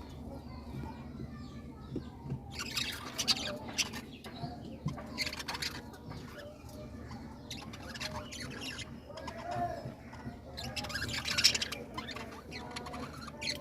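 A colony of birds calling and flapping their wings, with several short noisy rushes of squawks and wingbeats over a steady low hum.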